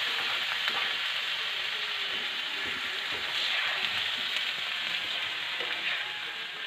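Raw chicken pieces sizzling in a frying pan over sautéed onion, being stirred and turned with a spoon, which scrapes against the pan. The sizzle is steady and eases a little toward the end.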